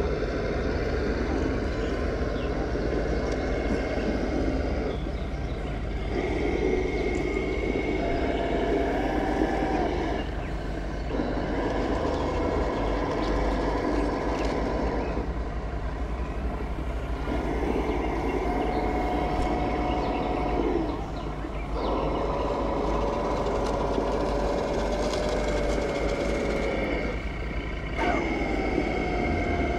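Electric motors and gears of RC scale model vehicles whining in repeated bursts of a few seconds, stopping and starting as they drive, over a steady low rumble.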